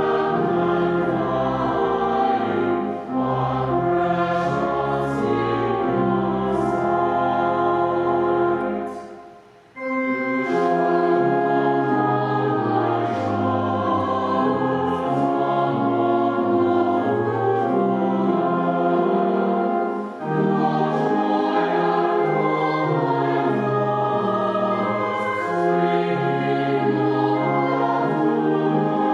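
Small mixed choir singing a hymn with organ accompaniment, in sustained chordal phrases. A brief break comes about nine seconds in between verses, and after it the deep bass notes drop out.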